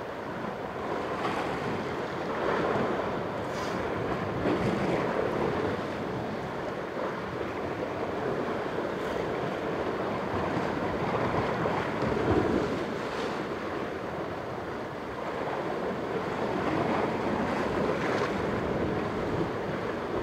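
Sea surf washing against a rocky cliff base, with wind on the microphone; the wash swells and eases every few seconds.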